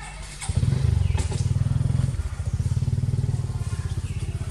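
A small engine running close by. It comes in suddenly about half a second in as a rapid low pulsing, loudest for the first second and a half, then keeps running steadily.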